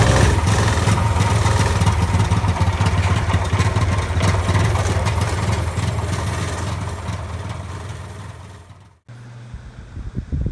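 A vehicle engine running, its sound heavy in the low end, fading away over the last few seconds and cutting off sharply about nine seconds in.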